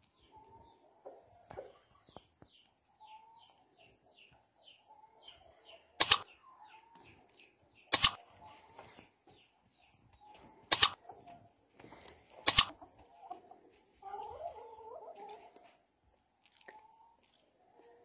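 Four sharp mouse-click sound effects over about six seconds, from a like-share-subscribe button animation, are the loudest sounds. Under them, hens make soft clucking calls and a small bird chirps faintly and repeatedly.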